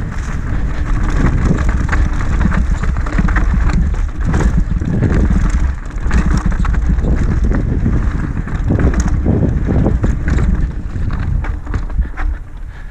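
Mountain bike running fast downhill on a dry, rocky dirt trail: wind buffeting the microphone with the tyres rolling over dirt and stones and the bike rattling and clicking over the bumps.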